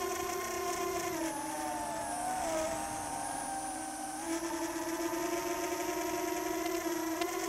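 Brushless motors and 4-inch propellers of an FPV quadcopter whining steadily. The pitch drops about a second in as the throttle eases off, then climbs back about four seconds in.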